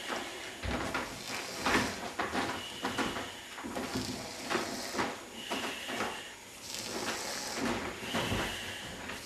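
Snoring: a string of raspy breaths about a second apart, three of them carrying a short high whistle.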